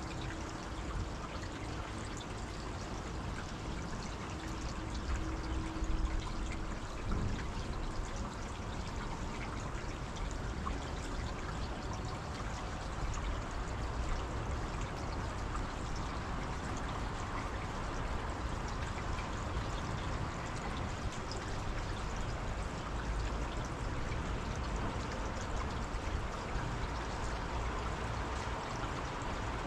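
Water rushing steadily, with a faint steady hum in the first few seconds.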